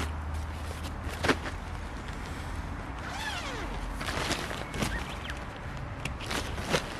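Camping gear being handled while a tent and tarp are set up: scattered clicks, knocks and rustles with footsteps, and one short squeak that rises and falls about three seconds in.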